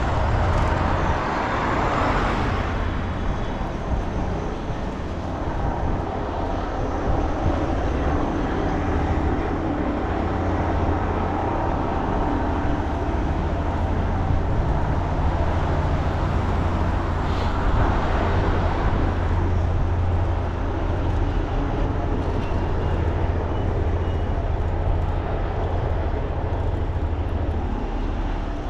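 Steady wind rumble on the microphone of a camera carried on a moving bicycle, with two louder swells of rushing noise, one about two seconds in and one about halfway through.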